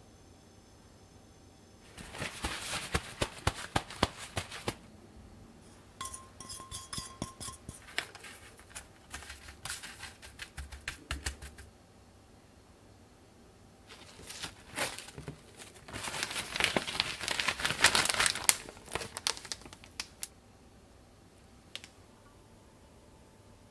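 Crinkling and crackling of plastic food packaging being handled, in two long bursts, about two seconds in and again from about fourteen to twenty seconds, with scattered clicks between them.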